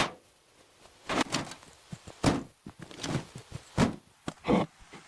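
Irregular knocks and clunks of hand construction work, like wooden pieces being struck and handled, about eight separate hits with short pauses between them.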